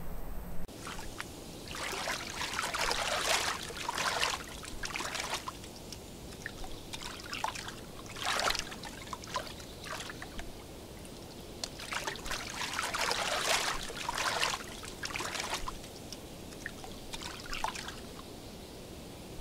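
Water splashing and trickling in several short bouts as a red squirrel swims and scrambles out of the water onto a stump.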